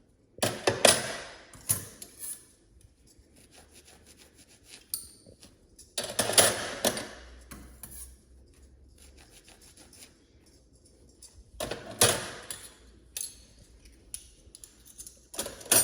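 Metal cutlery clinking and clattering as handfuls are laid into a drawer organiser, in four short bursts about five seconds apart.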